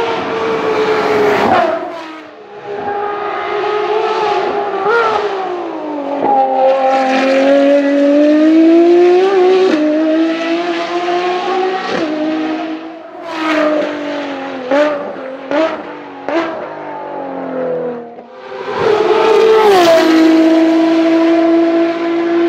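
Ferrari FXX K's 6.3-litre V12 running hard on a race circuit, its pitch rising and falling as it revs up and down through the gears. A run of short sharp revs comes in the middle, and a steady high note is held near the end.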